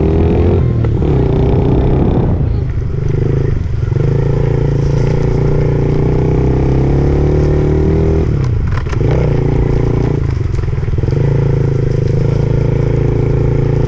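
Dirt bike engine running hard under the rider, its pitch held fairly steady, with four short throttle-offs where it drops and then picks up again.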